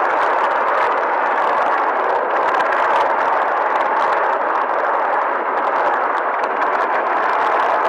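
UH-60 Black Hawk helicopter flying overhead: a loud, steady rush of rotor and turbine noise.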